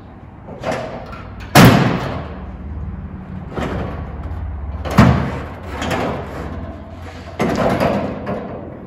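Hood of a 1941 Cadillac Series 62 being unlatched and raised: three sharp clunks, about one and a half, five and seven and a half seconds in, each with a short ringing tail, as the latch is worked and the hood panel is lifted.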